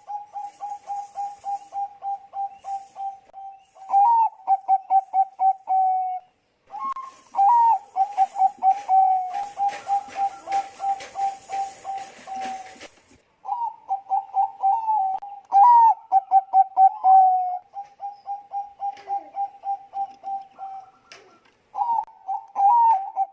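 Zebra dove (Bangkok-bred perkutut) cooing in its rhythmic song: five phrases of quick staccato coos, each opening on a few higher notes and running into a long string of fast even pulses, with short breaks between. A burst of hiss sounds under the middle phrase.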